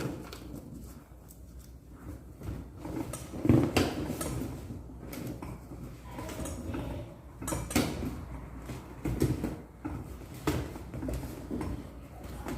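Inflated latex balloons being handled and fitted onto a balloon stand: irregular rubbing, knocks and clicks, the loudest knock about three and a half seconds in.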